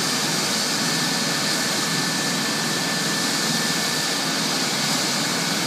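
Medical helicopter running on the ground with its turbine and rotor spinning up toward takeoff speed: a steady engine noise with a thin high whine held throughout.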